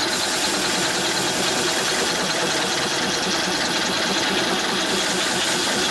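Multi-head drilling machine running, several spindles drilling into a metal plate at once: a steady, unbroken machining noise.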